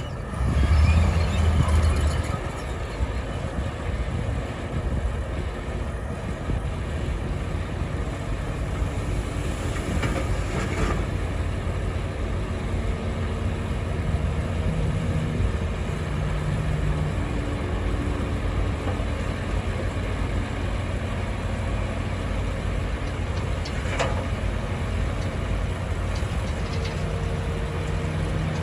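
Heavy diesel engine of a Komatsu crawler bulldozer running steadily during road clearing, with a louder surge about a second in.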